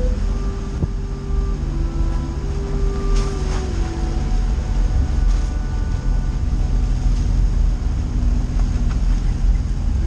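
Steady low rumble of a Suzuki off-roader driving a rough track, heard through a camera mounted outside on its bodywork, with soft background music holding slow notes over it.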